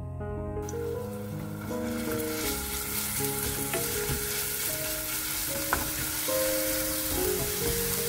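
Minced garlic sizzling in olive oil in a nonstick frying pan, the sizzle building up about a second in, while a wooden spatula stirs it with a few light taps against the pan.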